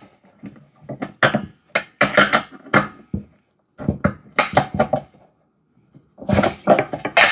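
Metal parts and hardware clinking and knocking while the air compressor's wheels and bolts are fitted, in a series of short clatters with a brief pause about five seconds in.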